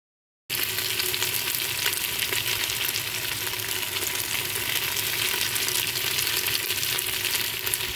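Spiced mutton pieces frying in oil in a metal pot: a steady, dense sizzle that starts about half a second in and cuts off abruptly at the end.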